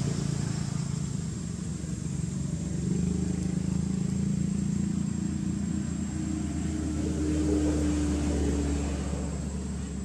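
Engine hum of a motor vehicle going past, swelling about three seconds in, loudest around eight seconds, then easing off. A thin, steady high whine runs underneath.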